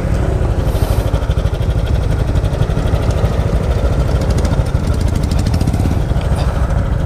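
Motorcycle engine running steadily while the bike is ridden, with a dense low rumble.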